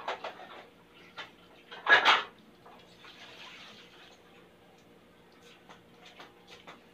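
Kitchen clatter of dishes and utensils being handled and set down, with one loud clatter about two seconds in and lighter knocks and clicks around it.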